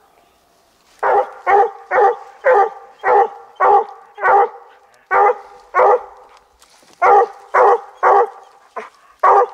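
Bluetick coonhound barking loudly and repeatedly, about two barks a second, starting about a second in.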